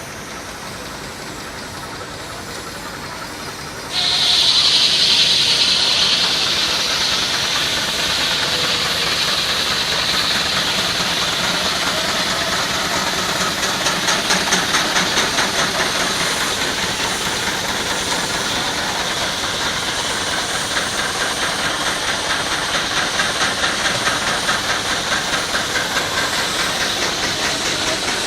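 Steam engine driving a sawmill: a sudden loud rush of hissing steam about four seconds in, then steady hissing with a fast, even chuffing of the engine's exhaust.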